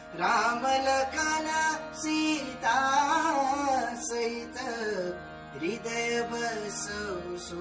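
Devotional singing with instrumental accompaniment: a voice draws out long phrases that glide up and down over steady held notes.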